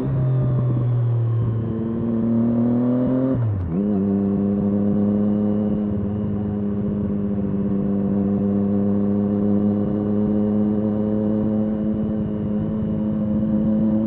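Triumph Street Triple S inline three-cylinder engine through an SC-Project SC1-R slip-on exhaust with its dB killer fitted, under way. The engine holds steady, pulls up in pitch, then drops sharply at an upshift about three and a half seconds in. After that it climbs slowly and evenly as the bike keeps accelerating gently.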